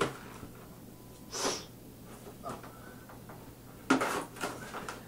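A plastic console shell and its foam being worked by hand with a blade on a tile floor: a sharp knock at the start, a short hissing scrape, then a loud cluster of knocks and scrapes about four seconds in.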